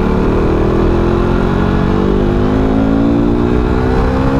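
KTM RC 390's single-cylinder engine pulling under acceleration, its pitch rising slowly and steadily through one gear.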